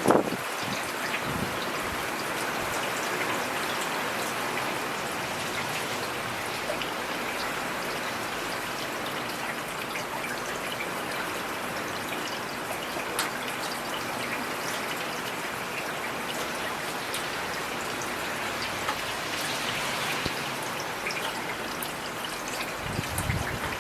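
Heavy rain falling steadily, a dense hiss of rain with many sharp individual drop impacts spattering through it. A brief low rumble rises under the rain near the end.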